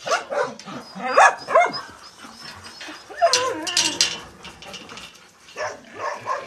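Several dogs barking and yipping on and off, loudest about a second in, with a wavering, whining call around the middle.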